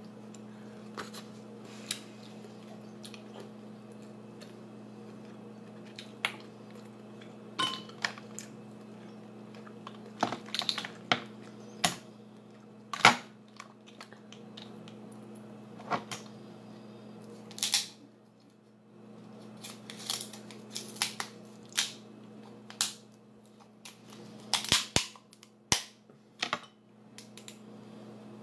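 Boiled lobster shell being cracked and snapped apart by hand: a string of sharp, irregular cracks and clicks, over a steady low hum.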